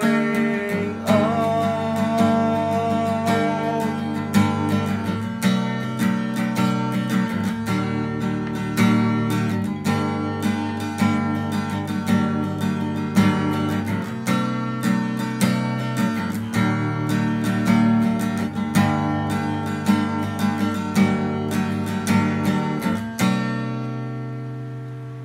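Steel-string acoustic guitar played solo, a steady run of plucked notes and chords. Near the end a final chord is left to ring and fade away.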